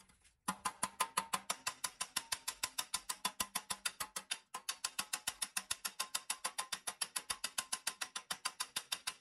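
Hammer blows on sheet metal clamped in a bench vise, bending it over the vise jaw: a rapid, even run of sharp taps, about nine a second, with a brief break about halfway.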